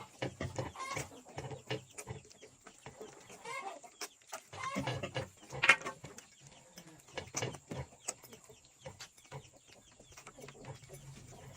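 Chickens clucking: a run of short, irregular calls, the loudest a little past halfway through.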